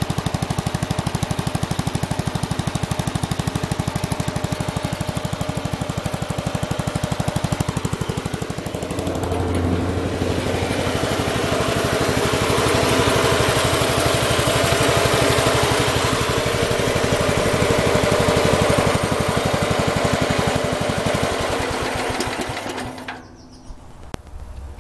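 Bolens 1050 tube-frame garden tractor engine running, first at a steady idle with an even pulse, then speeded up about nine seconds in. It cuts out a couple of seconds before the end. It now starts and runs after its points were cleaned and the point gap was reduced to fix the timing.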